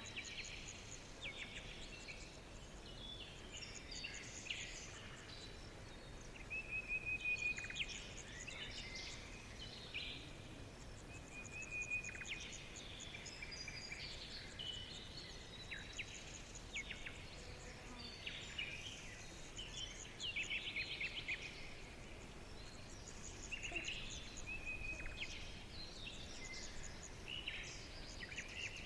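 Several songbirds chirping and singing over one another: quick chirps, rapid trills and a short whistled note that comes back every several seconds, over a faint steady background hiss.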